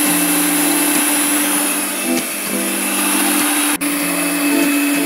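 Electric hand mixer running at a steady speed, its beaters whipping sponge-cake batter, with a constant motor hum under the whirr. There is a very brief dropout about four seconds in.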